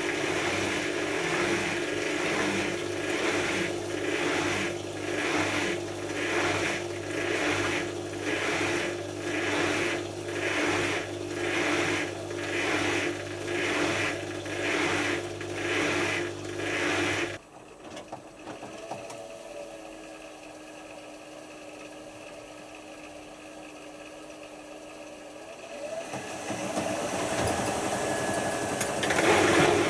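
Hotpoint HF8B593 washing machine drum turning under its motor, the laundry swishing about once a second. After a while the motor stops and a quieter hum remains. Near the end water starts rushing in as the machine refills for the rinse.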